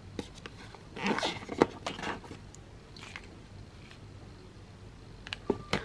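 Cardboard and paper packaging of a MacBook Air box being handled: scattered light clicks and taps, with a short rustle about a second in and a few more clicks near the end.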